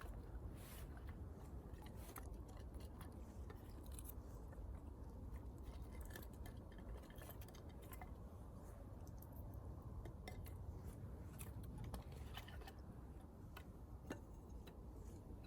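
Faint, irregular crackling and snapping of dry kindling in a small campfire, over a steady low rumble.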